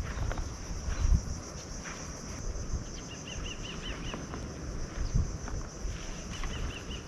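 Insects droning steadily at a high pitch, with a short run of about five quick high chirps about three seconds in and again near the end. There are a few soft low bumps.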